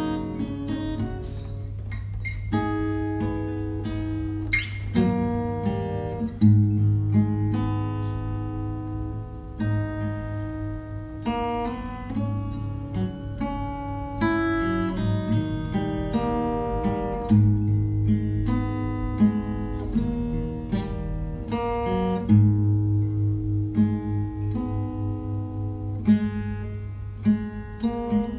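Background music of plucked acoustic guitar: a run of picked notes over a recurring low sustained note.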